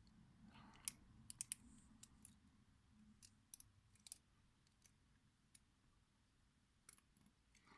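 Faint, irregular metallic clicks and ticks of a Deforest Teardrop hook pick working the pins of a Yale padlock under light tension, searching for a false set.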